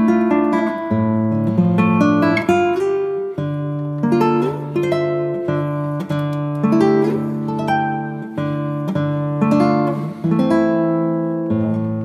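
Background music: an acoustic guitar plucking a steady melody of ringing notes over held bass notes.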